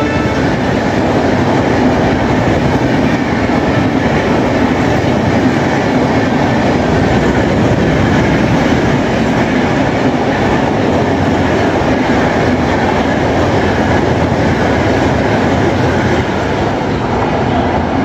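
Passenger coaches of an express train rushing past at speed, a steady loud clatter of wheels on rail that eases slightly near the end as the last coach goes by.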